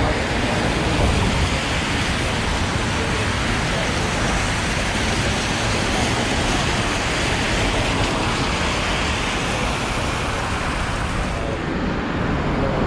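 Steady hiss of rain and road traffic on a wet city street. The highest part of the hiss drops away suddenly near the end.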